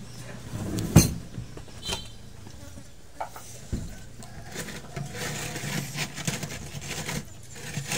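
Krupuk rambak (cow-skin crackers) crunching and snapping as they are broken and chewed, with one loud sharp snap about a second in, over a steady low hum.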